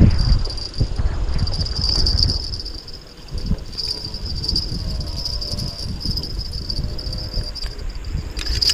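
Insects chirring in a steady, high, even drone over a low rumble.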